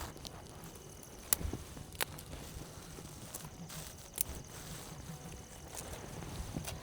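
Footsteps on dry forest ground with faint rustling, broken by a few sharp snaps like twigs cracking: one just over a second in, another about a second later, and a third past the four-second mark.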